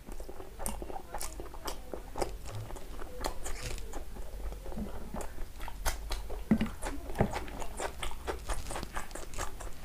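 A close-miked person chewing a mouthful of biryani rice and chicken gravy, with many small, wet mouth clicks and smacks at an uneven pace.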